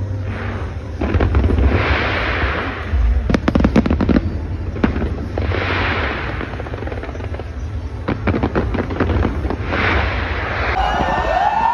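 Large fireworks display going off: a constant deep booming from the shells, with hissing swells about every four seconds and bursts of rapid sharp crackling from crackle effects.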